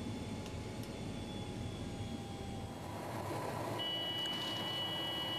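Steady cabin noise of a C-160 Transall in flight, the rush of its two Rolls-Royce Tyne turboprops heard from inside. About four seconds in, a steady high electronic tone starts and holds.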